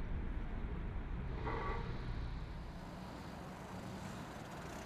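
Car engine running with a low rumble that drops away a little over halfway through.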